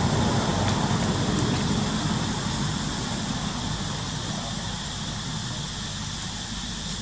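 A distant engine's low rumble, fading away over a few seconds, over a steady hiss.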